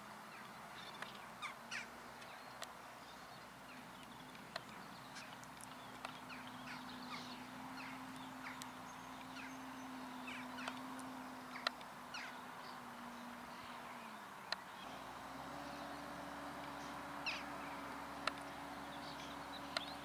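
Gulls calling over and over in short, harsh calls above the steady, distant hum of a Fendt 720 tractor's engine. The engine note steps up in pitch about fifteen seconds in.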